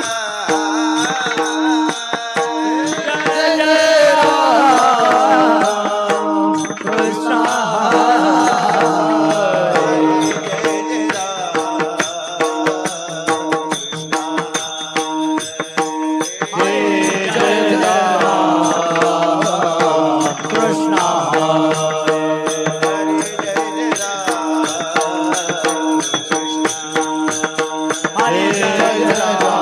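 Devotional bhajan music: a wavering melodic line over a steady held drone, with hand percussion keeping a fast, even beat.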